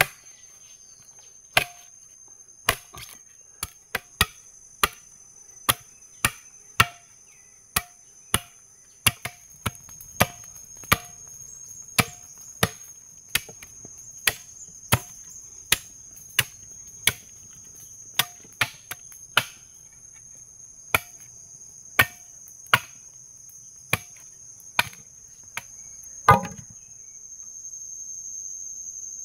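Steady chopping strikes on wood, about three every two seconds, each with a short ring, ending with one louder blow near the end. A constant high insect drone runs underneath.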